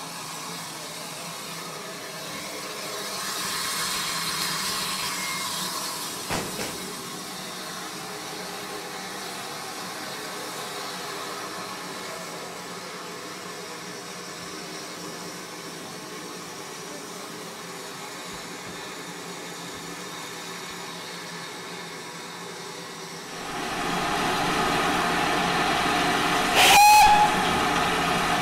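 Ex-GWR 0-6-2T steam tank locomotive standing with steam hissing, louder for a few seconds early on. Near the end it gives one short, loud blast on its whistle.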